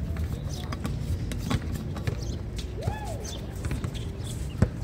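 A basketball bouncing on the court a few times, the sharpest bounce near the end, over steady background noise, with a short call about three seconds in.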